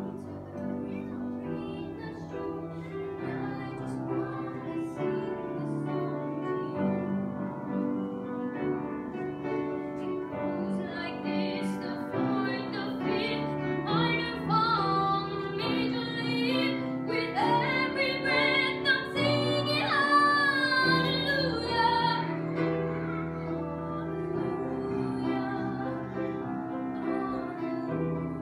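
A young woman's solo voice singing a Christmas hymn over sustained instrumental accompaniment, her long held notes wavering with vibrato and the singing loudest past the middle.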